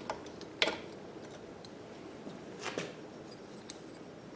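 A few light clicks and knocks of metal parts as a Briggs & Stratton engine's tank-mounted carburetor is worked loose and lifted out of its fuel tank. The sharpest click comes a little over half a second in.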